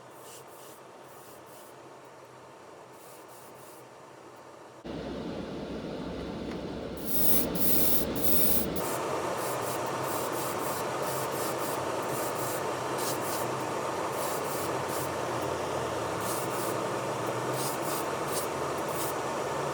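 Steady hissing, rubbing noise of hand work on a diecast model car body. It starts suddenly about five seconds in, with a stronger, brighter hiss from about seven to nine seconds in, then carries on evenly.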